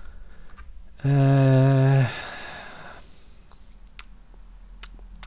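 A man's held, steady-pitched "mmm" hum lasting about a second, a thinking pause while reading. A few faint computer mouse clicks near the end.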